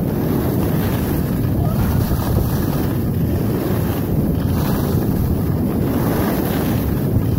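Steady wind rush buffeting the microphone of a camera moving downhill on skis, with the hiss of skis sliding over packed snow mixed in.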